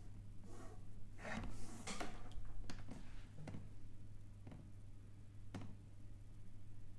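Scattered light clicks, about half a dozen spaced a second or so apart, from fingertips tapping a smartphone's touchscreen as it lies on a wooden table.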